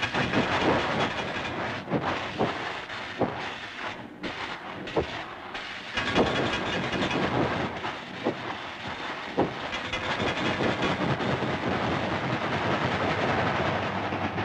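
Cartoon sound effect of a steam locomotive running at speed: a continuous chuffing hiss of steam with clattering wheels and scattered sharp knocks.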